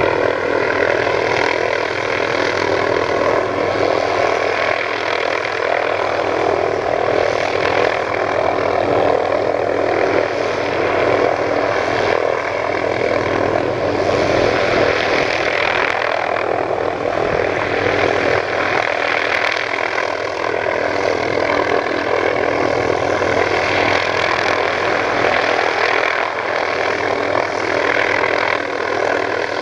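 Light utility helicopter hovering in place: steady rotor and engine noise with a constant whine.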